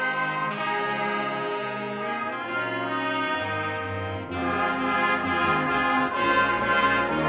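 Wind band of brass, saxophones and clarinets playing held chords that change every second or two, growing louder and fuller about four seconds in.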